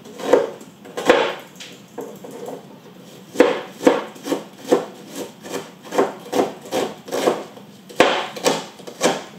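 Knife chopping onion and garlic: a few separate cuts, then a steady run of strokes at about three a second from about three seconds in.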